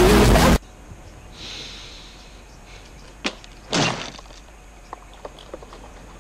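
Loud splashing in a swimming pool that cuts off suddenly about half a second in. After a quiet stretch comes a sharp crack a little past three seconds, then a heavier thud just before four seconds, as a person falls onto grass.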